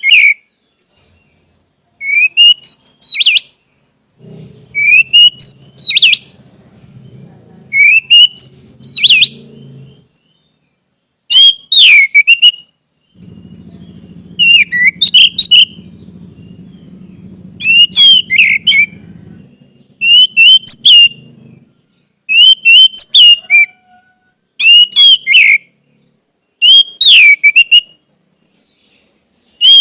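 Orange-headed thrush singing: short, loud phrases of sharp whistled and chirping notes, repeated about every two seconds. A low steady hum sits underneath in two long stretches.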